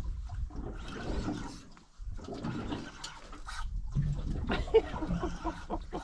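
Water splashing and gurgling as a hooked fish thrashes at the surface beside the boat, with a low rumble underneath.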